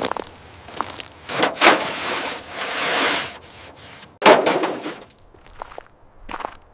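Irregular sharp knocks and cracks, with a rushing scrape lasting about two seconds and a heavy knock a little past the middle.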